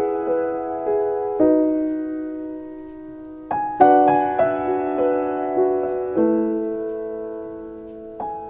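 Slow, gentle solo piano music: chords and single notes struck every second or two, each left to ring and fade.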